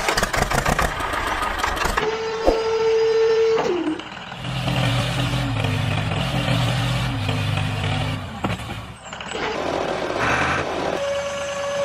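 Miniature toy tractor running sounds in several short stretches. First comes a fast putter, then a steady whine that slides down in pitch just before four seconds in, then a low running rumble, and near the end a steady high whine.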